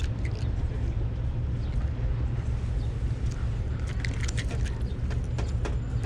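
Steady low rumble, with a few light clicks and taps about four to five and a half seconds in.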